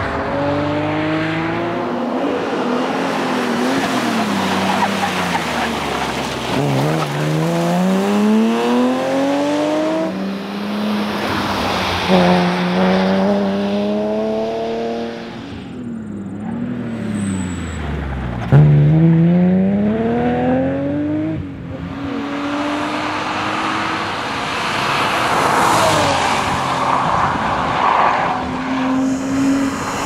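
BMW E36 M3's straight-six engine at full throttle, its pitch climbing steeply several times as it accelerates and dropping in between as it slows for corners.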